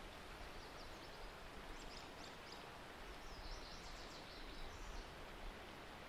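Steady wind noise with a low rumble on the microphone, and a run of faint, high bird chirps between about two and five seconds in.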